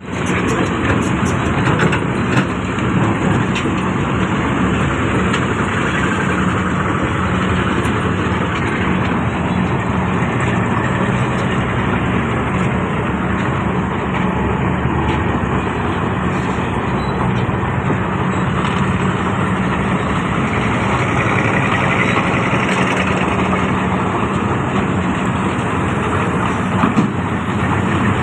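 Excavator's diesel engine running steadily, with a few sharp knocks of the machine at work.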